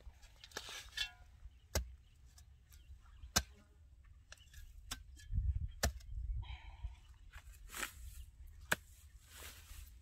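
Korean hand hoe (homi) and gloved hands working dry soil: a few sharp knocks a second or two apart as the tool strikes the ground, between the crumbling and rustling of clods and dry grass being broken apart.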